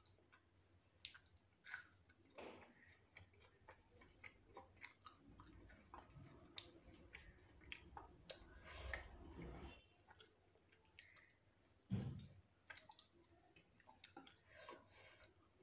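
A person chewing a mouthful of food, with many soft wet clicks and smacks of the mouth. A short, louder low thump comes about twelve seconds in.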